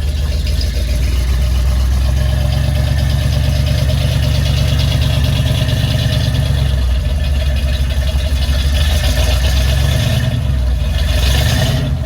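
Truck engine running through its newly extended exhaust, with a low, steady note that rises for several seconds, eases back about seven seconds in, and rises again near the end. It is a little quieter than stock but at a good level.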